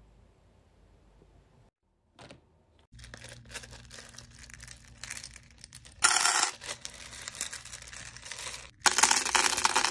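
Hard wax beads rattling and clattering in a metal bowl as a plastic scoop stirs and lifts them, with two louder spells of clatter about six and nine seconds in.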